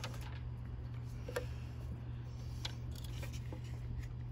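A few faint ticks and small handling noises from hands twisting and joining headlight harness wires, over a steady low hum.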